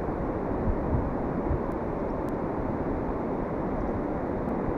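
Steady rushing of a fast, shallow river flowing over stones, with a low rumble underneath.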